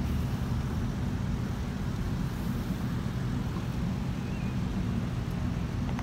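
Steady low rumble of motorcade SUVs' engines and tyres as the vehicles drive slowly past.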